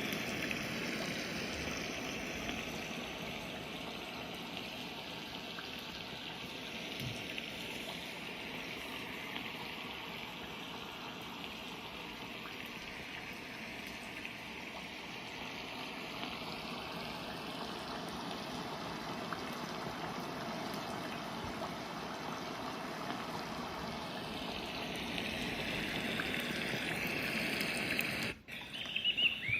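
A white noise machine's speaker playing a recorded water sound, a steady trickling stream that slowly swells and fades. Near the end it cuts out for a moment and switches to short chirping calls.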